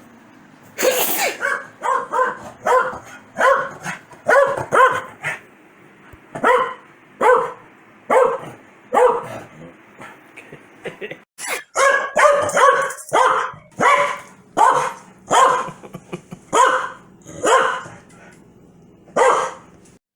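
Corgi barking angrily over and over, roughly one to two barks a second, with brief lulls about five and ten seconds in.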